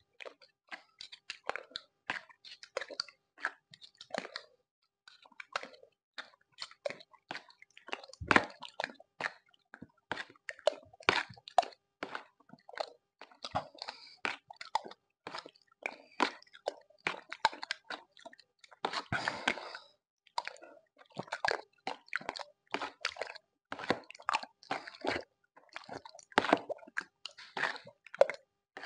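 Set gelatin being eaten fast with spoons: wet slurping and chewing in many short, irregular bursts, with one louder knock about eight seconds in.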